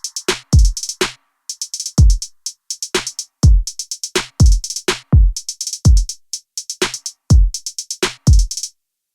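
Background electronic music: a drum-machine beat of deep kick drums dropping in pitch, with fast hi-hats, cutting off near the end.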